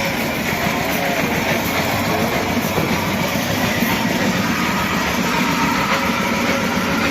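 Steady mechanical rumble and clatter of a running fairground ride's machinery, with a faint hum of tones over it.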